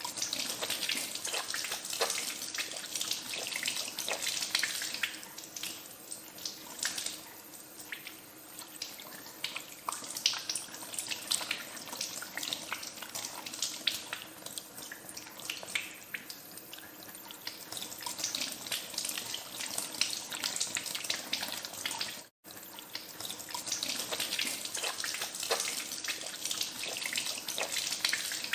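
Tap water running into a sink while hands are washed under the stream, with irregular splashing; the flow swells and eases. The sound cuts out for an instant about three-quarters of the way through.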